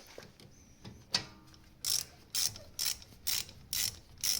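Ratchet wrench undoing a rear brake caliper bolt, its pawl clicking in short bursts about twice a second.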